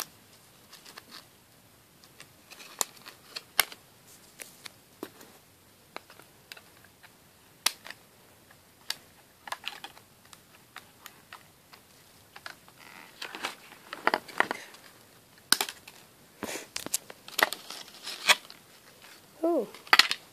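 Small scissors snipping and clear plastic packaging crinkling as rubber bands and plastic ties are cut from a doll's hair. Scattered sharp clicks and snips, busier in the second half.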